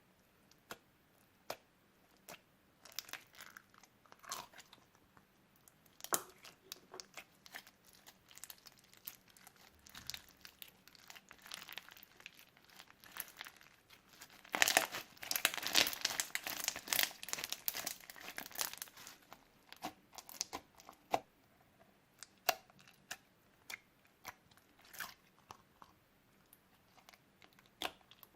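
Old slime being mixed and squished by hand, with scattered crackling clicks and pops that grow dense and loudest for several seconds about halfway through.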